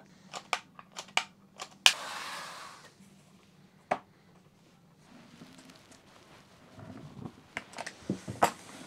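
Handling sounds of tools and flooring pieces on a work board: light clicks and taps, with a sharp click about two seconds in followed by about a second of rasping.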